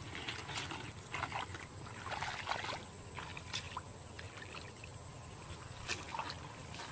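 Bare feet squelching and splashing through shallow muddy water in irregular steps, busiest in the first half, with a sharp click about six seconds in.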